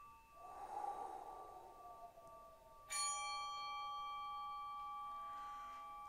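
A breathy whoosh with a slowly falling tone, then about three seconds in a metal bell is struck once and rings on with several steady tones, over the fading ring of an earlier strike.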